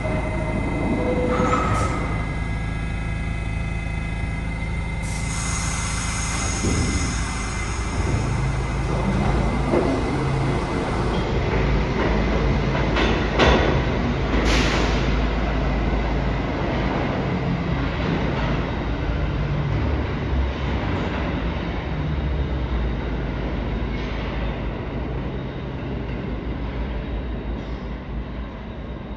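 R68-series New York City Subway D train pulling out of the station and running off into the tunnel: steady rumble of motors and wheels on the rails, fading as it gets further away near the end.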